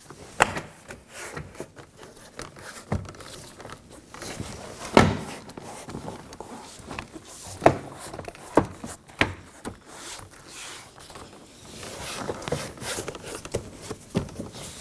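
A front door trim panel being pressed down along its edges so that its plastic retaining clips snap into the door: a series of irregular sharp clicks and thumps, with handling rustle in between.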